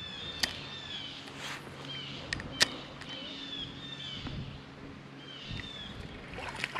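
Small birds singing: many short chirping notes throughout, with a few sharp clicks about half a second and two and a half seconds in and a faint low hum in the middle.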